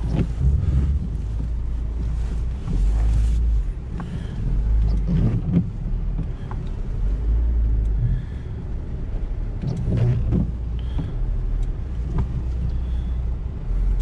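Lada Niva Travel's 1.7-litre four-cylinder petrol engine running as the car crawls slowly off-road over rough, furrowed ground: a low, uneven rumble with occasional short knocks from the body and suspension.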